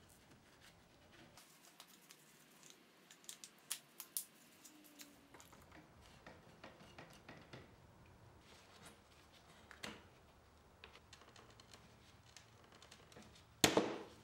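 One-handed bar clamps being squeezed tight on a wooden table frame to hold re-glued joints: scattered faint ratcheting clicks, with one louder clatter near the end.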